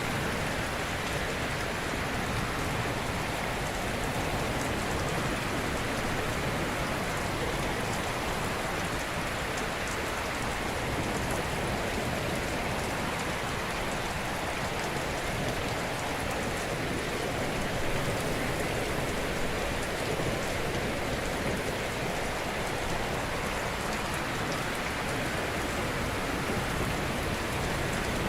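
Ocean surf: a steady, even wash of breaking-wave noise with no distinct individual wave crashes.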